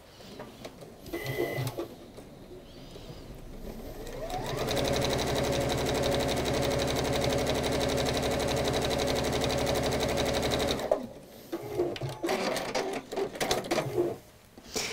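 Sewing machine stitching a seam: the motor whines up to speed about four seconds in, runs at a steady rhythm for about six seconds, then stops abruptly. Faint fabric handling comes before and after.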